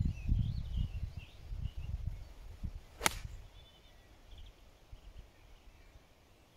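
A golf iron strikes the ball once, a single sharp crack about three seconds in. Before it there is a low rumble for the first two and a half seconds.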